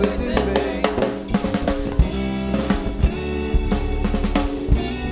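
Live reggae band playing an instrumental passage: a drum kit keeping a steady beat over electric bass and guitar.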